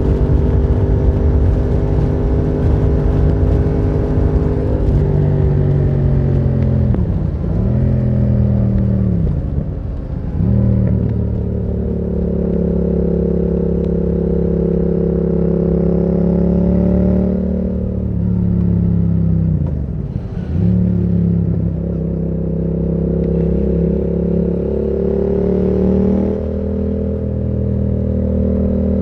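Yamaha MT-07's parallel-twin engine running through a Termignoni exhaust while riding, holding steady revs for long stretches. The revs drop sharply and climb back a few times, about seven, ten and twenty seconds in.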